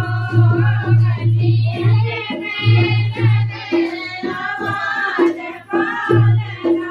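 A group of women singing a Hindi jachcha (childbirth celebration) folk song together, with a dholak-style hand drum keeping a steady beat. The drum's low strokes drop out for a few seconds midway and come back near the end.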